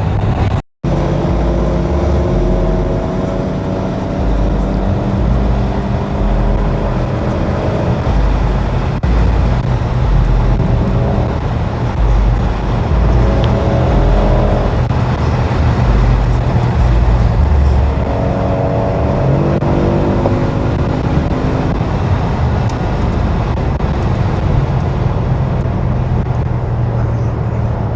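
Audi S6 driving, heard from inside the car: heavy low road and engine rumble, with the engine note climbing slowly and dropping back several times as it pulls through the gears.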